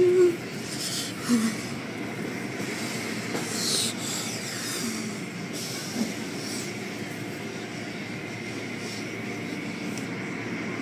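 Automatic car wash machinery running: a steady mechanical hum with a faint high whine, and hissing bursts of water spray every few seconds. A short pitched sound, the loudest moment, comes at the very start.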